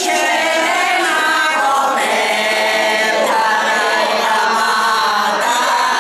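A group of older women singing together in long, drawn-out notes.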